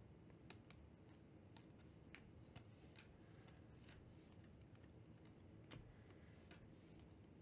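Faint, irregular clicks of glossy Donruss Optic basketball trading cards being flipped one at a time off a hand-held stack, roughly one or two a second.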